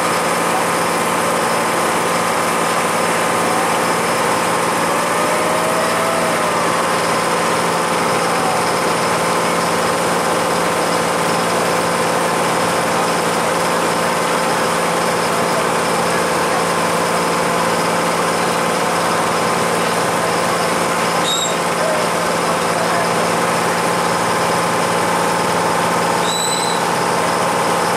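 A boat's engine running at a steady drone, with two brief high chirps near the end.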